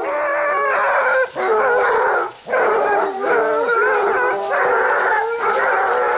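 A pack of Basset Bleu de Gascogne hounds giving tongue together as they run, many deep baying voices overlapping into one continuous chorus, with two brief lulls about one and two and a half seconds in.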